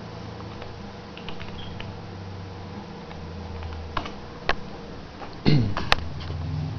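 Steady low hum of a Dell PowerEdge 1800 tower server running, with a few sharp clicks around four seconds in and a louder knock about five and a half seconds in.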